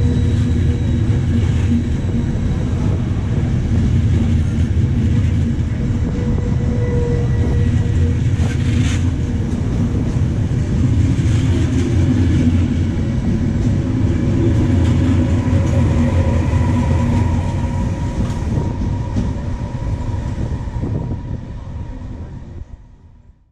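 Intercity passenger train rolling along a station platform, a steady rumble of coaches and wheels on the rails with some clickety-clack. The sound fades out near the end.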